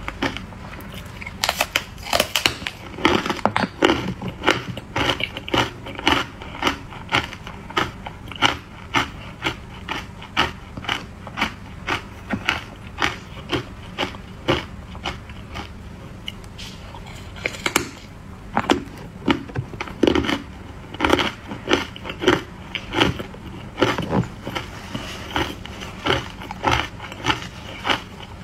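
Hard ice coated in matcha powder being bitten and crunched between the teeth close to the microphone: a steady run of sharp crunches, about two a second.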